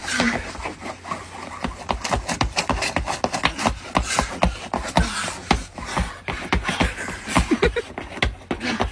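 Shoes scuffing, scraping and stamping on a wet, icy concrete step as a man slips and struggles to keep his footing, making a rapid, irregular run of knocks and scrapes.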